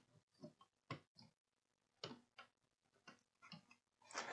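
Near silence broken by a few faint, short clicks and taps of small electronic parts being handled and fitted on a circuit board, then louder handling noise starting just before the end.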